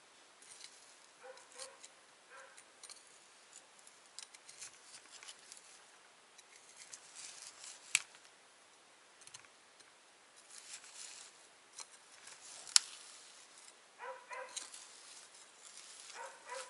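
Knife cutting and scraping into frozen cow-head meat on a wooden block, in scattered short strokes, with two sharp clicks of the blade, about eight and thirteen seconds in.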